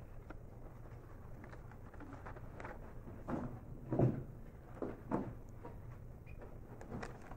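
Classroom room tone with a steady low hum, broken by a few soft thuds and knocks of students and desks shifting, the loudest about four seconds in as a desk is leaned on.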